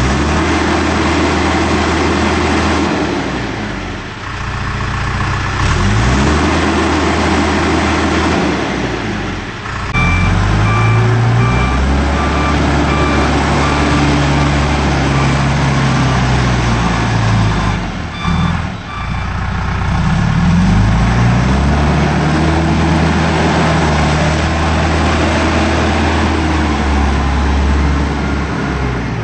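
2007 John Deere 310J backhoe loader's diesel engine running and revving up and dropping back several times, with its reversing alarm beeping in two spells, the first about a third of the way in.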